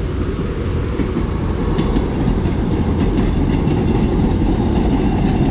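Tourist train passing close by, its cars running on the rails with a loud, steady low rumble.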